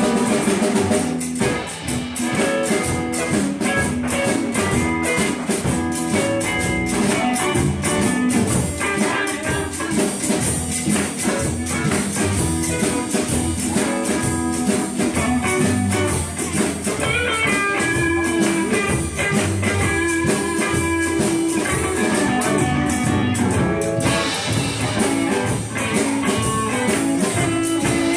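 Live blues band playing: electric guitars over a steady drum-kit beat.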